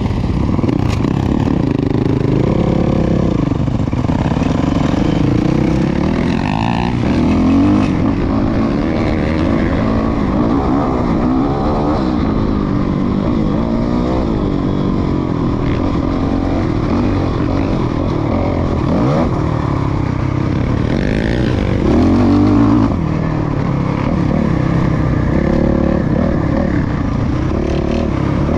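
2019 Suzuki RM-Z450 dirt bike's single-cylinder four-stroke engine, fitted with a Yoshimura RS-12 full exhaust, running under way. The revs rise and fall over and over as the throttle is worked and the bike shifts gears.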